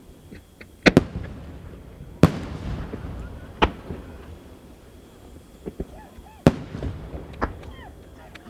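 Large aerial firework shells bursting overhead, five sharp booms a second or more apart, each trailing off in a rolling rumble.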